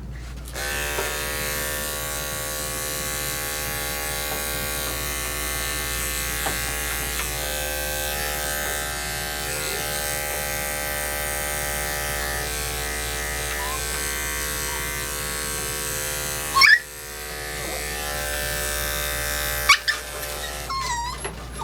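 Electric dog grooming clippers buzzing steadily while shaving down a matted puppy's coat. Around two-thirds of the way through the clippers cut out briefly and the puppy gives a sharp, rising yelp; it yelps again shortly after, and there are short yips near the end.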